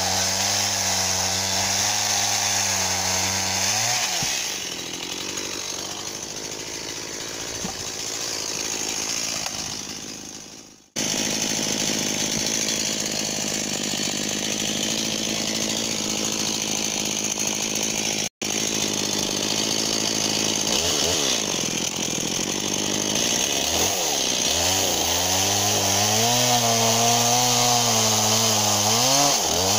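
Stihl MS 170 two-stroke chainsaw running at high revs, then cutting into wood: the clear engine note goes rough and quieter while the chain is in the cut, and the engine revs freely again near the end. The sound breaks off suddenly twice, about a third and about two thirds of the way in.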